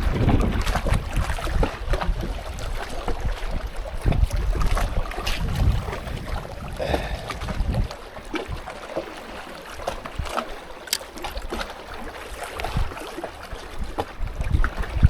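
Wind buffeting the microphone in gusts, a low rumble that eases after about eight seconds, with scattered small clicks.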